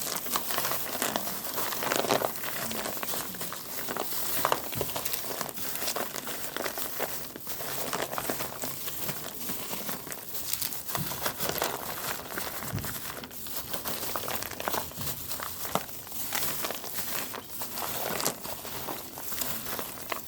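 Homemade hard-candy cough drops being shaken and tossed with cornstarch and arrowroot powder to coat them so they won't stick together: continuous irregular rattling and crinkling.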